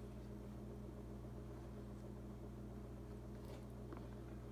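Quiet room tone with a steady low hum and a faint hiss. A few faint ticks near the end come from a leather glove lace being handled.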